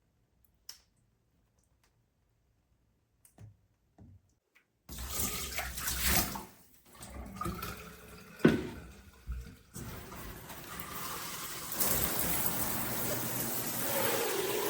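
A few faint clicks, then water comes on about five seconds in, spraying from a handheld shower head with a sharp knock and splashing. It settles into a steady hiss of spray that grows louder a couple of seconds later.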